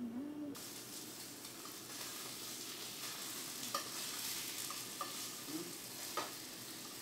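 Chicken breast sizzling in a stainless steel skillet: a steady frying hiss that starts suddenly about half a second in, with a few light clicks of a metal utensil against the pan.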